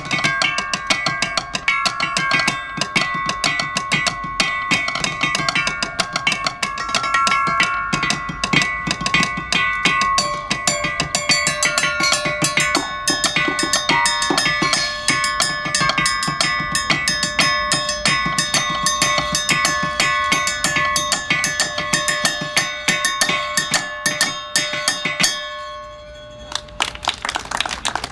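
Two xylophone-like instruments made of grey bars, struck rapidly with sticks by two players: a dense run of pitched, ringing knocks with some notes left to ring on. The playing stops about two and a half seconds before the end, and applause starts.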